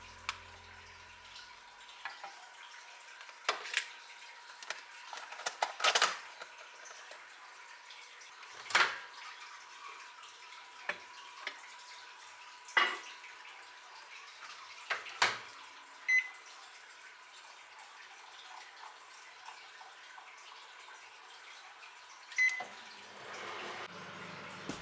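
Kitchen cooking sounds: scattered light knocks and clinks of utensils and dishes, a couple of them ringing briefly, over a faint steady hum.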